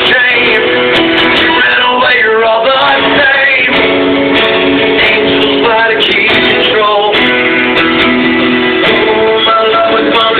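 Live music led by a strummed guitar, loud and steady, with held chords and notes.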